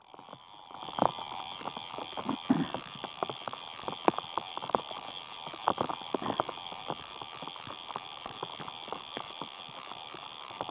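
Rain falling on a river: a steady hiss, with many irregular sharp taps of raindrops striking close to the microphone.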